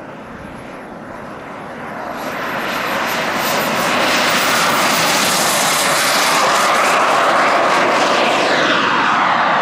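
Model turbine engine of a Boomerang RC jet spooling up with a rising high whine, then running at full power with loud, rushing jet noise on its takeoff roll. The pitch falls near the end as the jet moves off down the runway.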